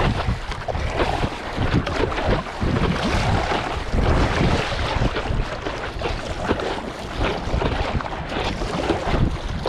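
Wind rumbling on the microphone over water sounds: a stand-up paddle's blade dipping and pulling through the sea, and water splashing at the board's nose. The noise rises and falls unevenly.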